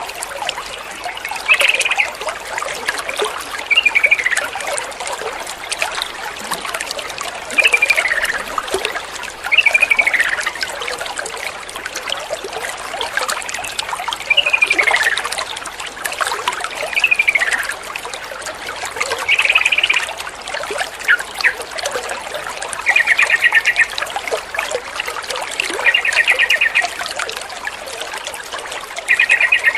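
Water trickling steadily, with a yellow-vented bulbul calling every couple of seconds. The calls are short downward-sliding whistles, and in the second half they turn into short rapid trills.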